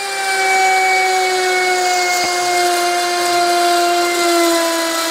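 Trim router spindle of a CNC router running at speed with its bit cutting wood: a steady motor whine whose pitch sinks slowly, with a faint click about two seconds in.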